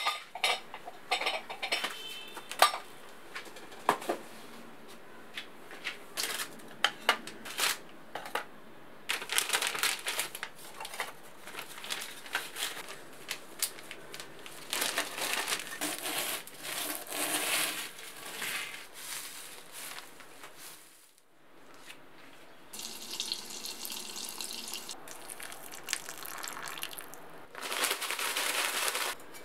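Kitchen prep handling sounds: a plastic zip-top bag rustling and crinkling as sandwich biscuits inside it are crushed into crumbs, among clicks and knocks of bowls and utensils set down on the counter. Stretches of rustling crunching come and go between the taps.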